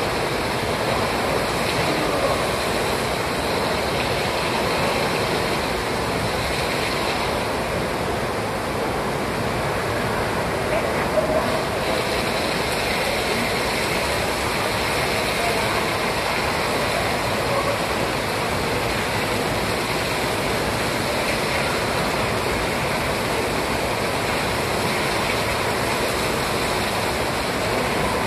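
Steady rushing of water, a continuous even roar of pouring or jetting water at a swimming spot.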